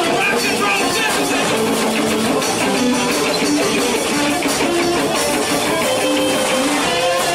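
Live band playing 1950s-style rock and roll, with electric guitar to the fore.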